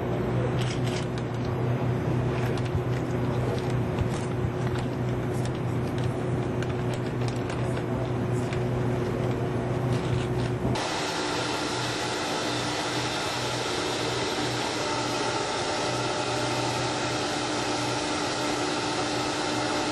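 Steady machinery hum with scattered sharp clicks. About eleven seconds in it changes abruptly to a steady fan-like hiss with several fixed whining tones.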